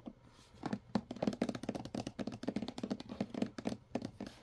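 Hands handling a hard plastic toy carrying case: a rapid, irregular run of small clicks and taps that starts about half a second in and stops just before the end.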